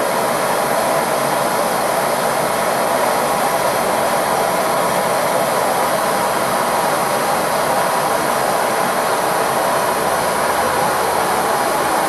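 Bernzomatic BZ8250HT air-fuel hand torch burning steadily into a small refractory furnace, a continuous even rushing noise as the furnace heats up.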